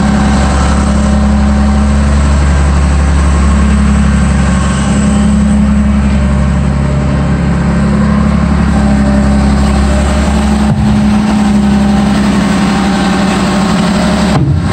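Caterpillar 966G wheel loader's diesel engine idling steadily.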